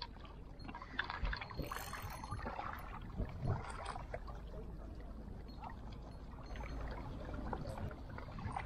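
Small waves lapping and washing against shoreline rocks, with a few faint clicks and knocks in the first few seconds.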